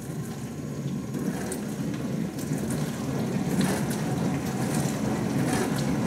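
Beko DFS 26010 W dishwasher running its wash with the door shut: the pump drives water through the spray arms in a steady rush that grows gradually louder. It is running empty, so with nothing to take the force of the strong spray it is a little noisier.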